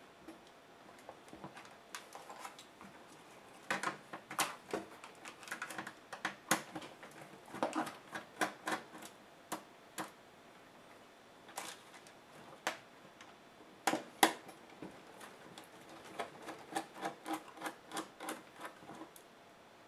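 Plastic laptop case parts being handled and pried apart: irregular clicks, snaps and taps of plastic clips and panels, some in quick clusters, the loudest about two-thirds of the way through.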